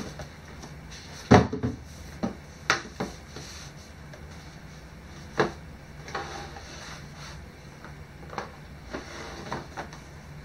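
Cardboard boxes being moved and set down on a wooden workbench: a string of knocks and scrapes, the loudest about a second and a half in.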